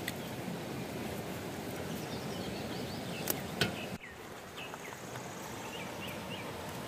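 Steady rush of a flowing river with a few short bird chirps in the second half and two sharp clicks a little past the middle.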